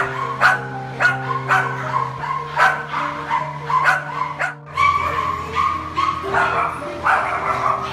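Several dogs barking and yipping repeatedly, short sharp barks coming about every half second, over background music with long held low notes.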